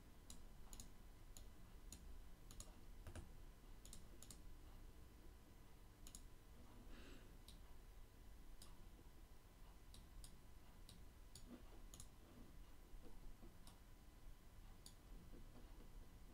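Faint computer mouse clicks, irregular and scattered, sometimes several in a second, over a near-silent room.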